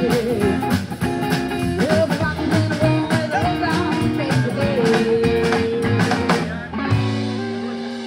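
Live rock and roll band with female vocals, upright bass, drum kit and guitar playing the close of a song. The singer holds a long note, then about seven seconds in the band hits the last beat and a final chord rings on and fades.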